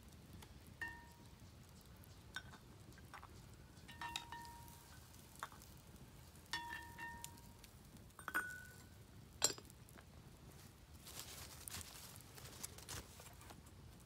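Cast iron cookware clinking as a small pot and utensils knock against the potjie pot, about ten light clinks, several ringing briefly. Near the end they give way to a soft rustling of handling.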